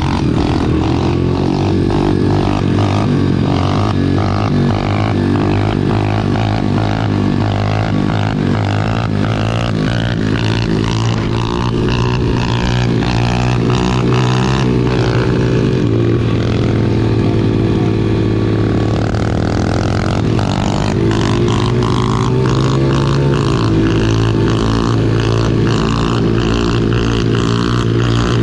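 Small single-cylinder four-stroke pit bike engine running while riding, its revs climbing early on, dropping off about halfway through and building up again.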